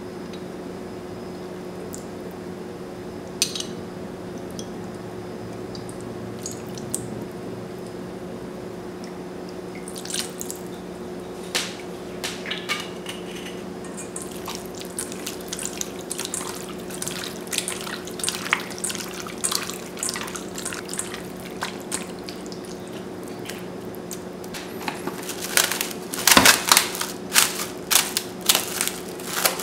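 Hands squishing and kneading raw chicken thigh pieces in a soy sauce marinade in a stainless steel bowl: a run of short wet clicks and squelches that begins about a third of the way in and grows busier, under a steady low hum. Near the end comes the loudest part, crinkling of plastic wrap being pressed over the bowl.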